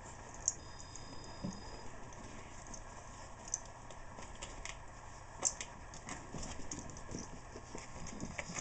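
Two Yorkshire terriers scuffling over a tug toy on carpet: scattered light clicks and taps of paws and claws, with a few sharper knocks.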